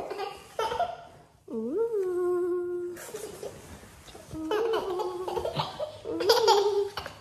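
Toddler girl laughing while being tickled: bursts of giggling, with one long drawn-out note about two seconds in.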